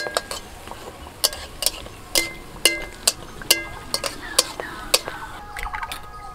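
Metal spatula clinking against a metal kadai while basting hot oil over a frying mughlai paratha: about ten sharp, ringing clinks at an uneven pace.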